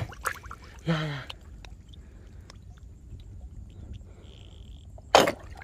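Handling noise from the filming phone: a short vocal sound about a second in, a brief high tone around four seconds in, and a loud knock against the microphone near the end.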